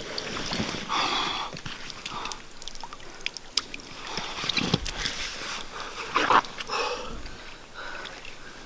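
A wet Bergen rucksack and its dry bag being handled and repacked after a river swim: irregular rustling, small clicks and knocks. Two louder bumps come about four and a half and six seconds in.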